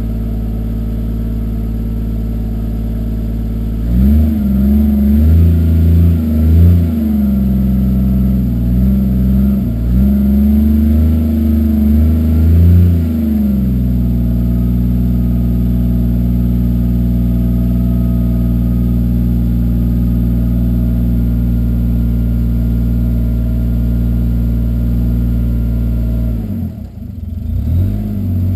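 Toyota 2JZ-GTE inline-six with a single Turbonetics T70 turbo, running through a 3-inch no-cat exhaust with a MagnaFlow muffler. It idles steadily, is revved up and down repeatedly for about ten seconds starting some four seconds in, settles back to a steady idle, then gets a couple more quick revs near the end.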